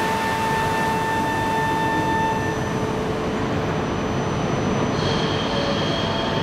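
E4 series double-decker Shinkansen standing at the platform, its equipment running with a steady whir. A steady high tone stops about two and a half seconds in, and fainter, higher tones come in near the end.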